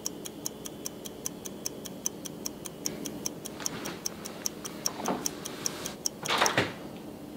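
A clock ticking fast and evenly, about five ticks a second, stopping about six and a half seconds in. Just as it stops comes a short, louder rustle of body movement.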